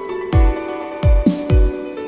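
Electronic background music: deep bass drum hits that drop in pitch, three in the two seconds, over held synth chords, with a hissing swell about the middle.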